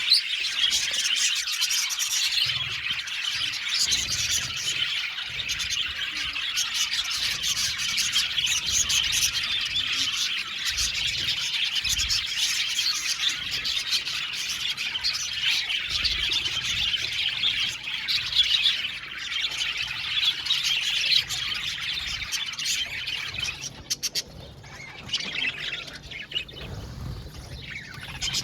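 A colony of budgerigars chirping and chattering together, many birds at once in a dense continuous warble, thinning to fewer scattered calls near the end.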